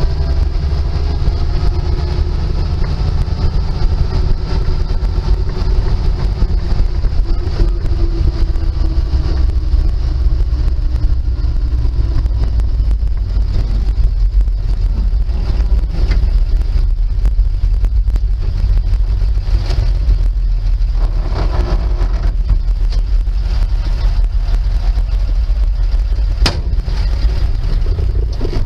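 1948 Dodge 1.5-ton truck under way, heard from inside the cab: its flathead six engine and spur-gear transmission give a steady loud low rumble, with whining tones that fall and rise as the gears are changed. One sharp click near the end.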